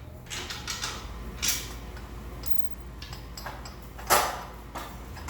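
Metal clinks and scrapes of motorcycle exhaust parts being worked loose and pulled off: a handful of separate knocks, the loudest about four seconds in.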